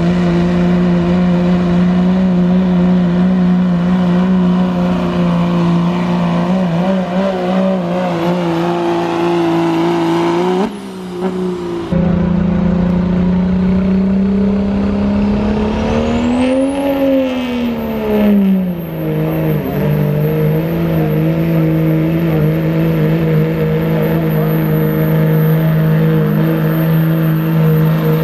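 Turbocharged diesel pickup engines running at sustained full throttle while pulling a weight-transfer sled. About 11 seconds in the sound breaks off and switches to a second truck, whose engine note rises and falls once at around 16–18 seconds before settling back to a steady pull.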